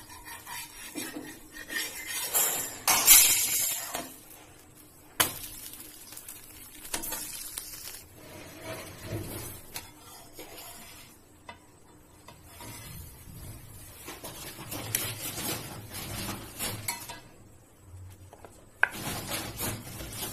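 A cooking utensil scraping and clinking against a flat griddle pan as an egg-coated roti is turned and lifted off. The scraping is loudest a few seconds in, with sharp clicks about five seconds in and again near the end.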